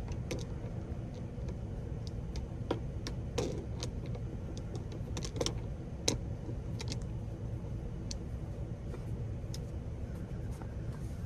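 Scattered, irregular light clicks and taps over a steady low hum.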